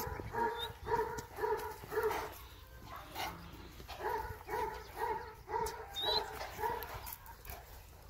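A dog barking over and over in an even rhythm, about two barks a second, pausing for about a second just after two seconds in.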